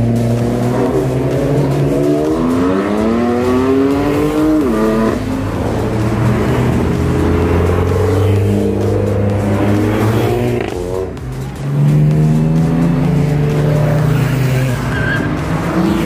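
Car engine revving under acceleration, its pitch climbing and then dropping back sharply a few times over, with a brief lull about three quarters of the way through.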